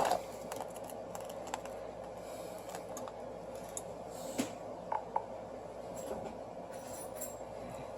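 Scattered faint clicks and small scrapes of a tool chipping broken glass off a Samsung Galaxy S6 Active's screen, over a steady low hum.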